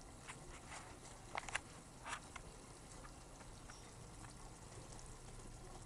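Faint kitchen handling sounds over a simmering pot: a few light clicks and taps, two of them close together about a second and a half in, over a low steady hiss.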